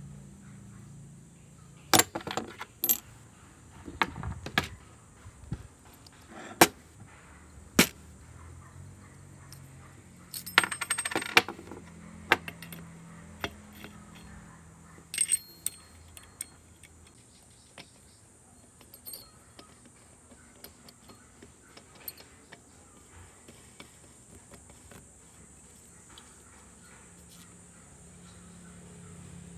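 Metal chainsaw clutch parts and small tools clinking and clattering on a wooden workbench as they are handled and fitted. A few sharp clicks come in the first eight seconds and a short rattle about eleven seconds in, followed by a couple more clicks and then only faint, occasional taps.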